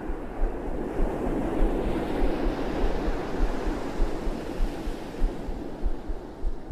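Ocean waves surging, a sea-surf sound effect: a rushing wash of water that swells about two seconds in and slowly falls away, over a low rumble.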